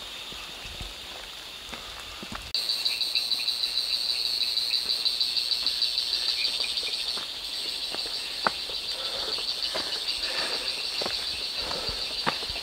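A steady, high-pitched chorus of insects chirring in the forest, which suddenly grows louder about two and a half seconds in, over the hiker's footsteps on a muddy dirt trail.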